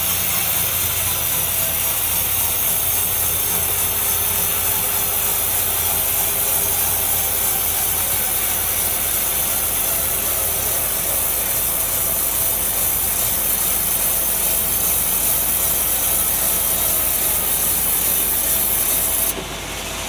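Sawmill blade cutting steadily through a large log, a continuous rasping hiss that stops abruptly near the end.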